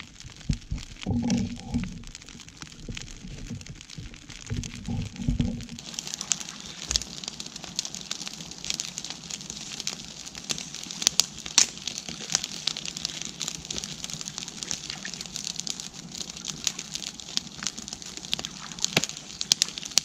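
Freshly lit campfire of stacked logs, its kindling and dry twigs crackling with irregular sharp pops as the fire catches. A couple of low muffled thumps sound in the first few seconds.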